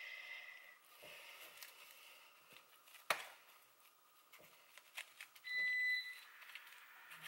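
Soft taps and scrapes of a plastic spoon spreading sushi rice in a metal springform pan, with a sharp click about three seconds in. About five and a half seconds in, a single steady high electronic beep lasting just over half a second is the loudest sound, after a fainter beep at the same pitch at the very start.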